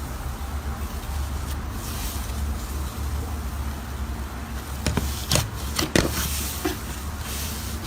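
Slime being squeezed and worked by hand, with a few sharp sticky pops and clicks about five to six seconds in, over a steady low hum.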